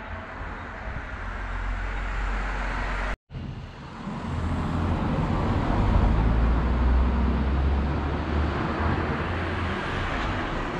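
Street traffic noise: a car drives past, swelling about halfway through and slowly fading, over a low rumble.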